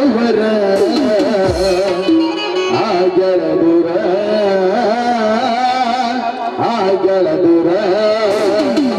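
Indian folk stage-drama music: a wavering melody line over light percussion, playing throughout.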